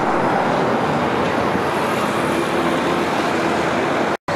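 Steady road traffic noise: a continuous rush of passing vehicles. The sound drops out briefly near the end.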